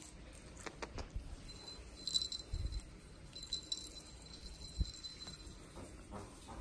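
Light metallic jingling, like a small key ring, in two short bursts about two seconds and three and a half seconds in, as a kitten bats at its toys. A few soft low bumps come in between.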